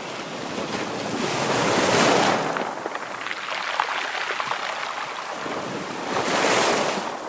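Ocean waves breaking on a shore: two waves crash, about two seconds in and again near the end, with the water hissing and crackling as it washes between them.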